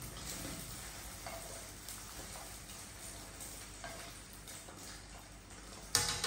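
Egg sizzling in a frying pan over a gas burner, with the soft scrape and tick of chopsticks pushing it around the pan. A single sharp knock near the end.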